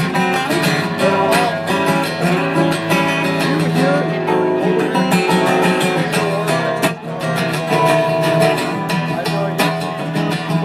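Acoustic guitar strummed steadily in an instrumental break between verses of a song.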